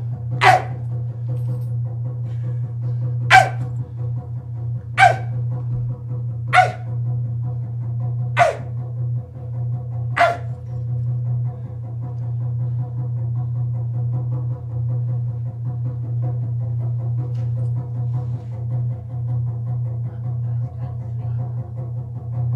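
A man's voice giving six short, sharp bark-like animal calls, one to two seconds apart, over a steady low drone; the calls stop about ten seconds in while the drone goes on.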